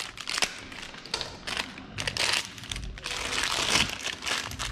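Clear plastic packaging bag crinkling and rustling as hands work it open, louder about two seconds in and again near the end.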